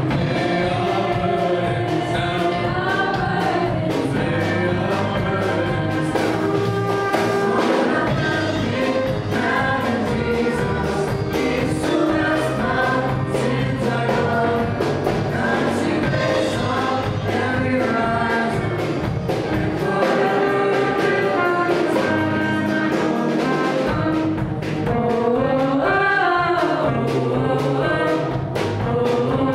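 Live church worship band: a group of voices singing together over keyboard, bass guitar and drums. The low bass drops out for a few seconds about two-thirds of the way through, then returns.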